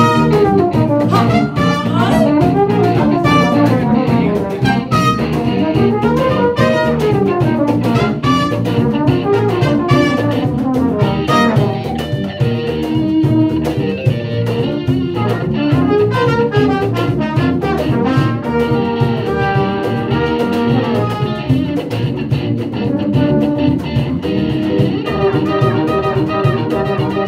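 Small live band playing an instrumental tune: trumpet, trombone and tuba over electric guitar, bass guitar and congas, with a steady beat.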